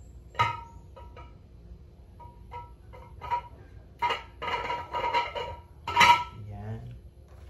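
Glass drink dispenser and its fittings clinking and knocking as they are handled: a series of sharp clinks, several leaving a short ringing tone, busiest about four to five seconds in, with the loudest clink about six seconds in.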